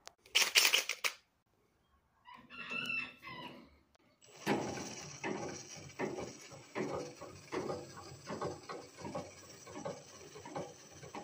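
Chickens: a rooster crowing in the first seconds, two calls, then a long run of pulsing chicken calls, about two a second.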